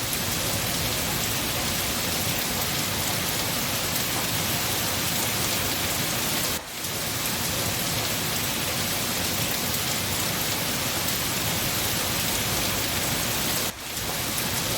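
Steady, dense rainfall with no break in the downpour. The sound drops out briefly twice, about seven seconds apart.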